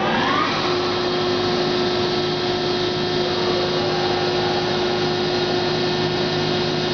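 Hydraulic system of a 385-ton Accurpress CNC press brake running with a steady whine and hiss; a short rising pitch at the start settles into a steady tone. The ram is being jogged to level its two sides (Y1 and Y2).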